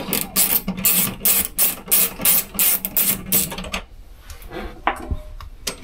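Fast, even clicking from a hand tool working the cable terminals of a boat's electrical distribution panel, about four clicks a second over a steady low hum. The clicking stops a little under four seconds in, leaving a couple of single clicks.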